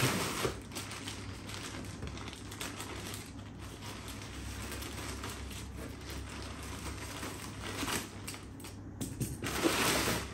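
Plastic courier mailer bag crinkling and rustling as it is cut open with scissors and handled, with a louder rustle near the end as the bag is pulled open.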